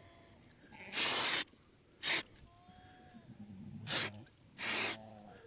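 Aerosol spray-paint can hissing in four bursts, two of about half a second and two short ones, as livestock marking paint is sprayed onto a calf.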